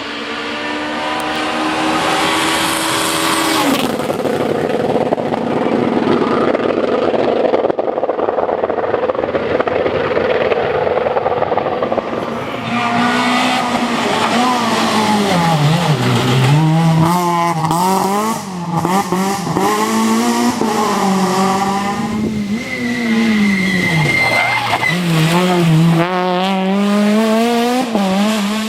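Rally cars at full throttle on a special stage. An engine note climbs and cuts off about four seconds in, a rough noisy stretch follows, and from about twelve seconds in the engine revs climb and drop again and again through gear changes and braking.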